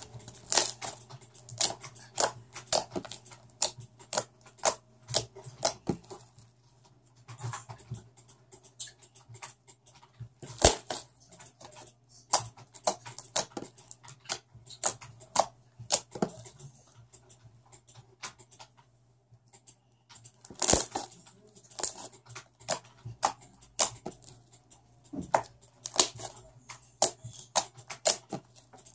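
Fluffy homemade slime being squeezed, stretched and pressed by hand, giving irregular sharp pops and clicking crackles as air pockets burst, in quick clusters with short pauses between them.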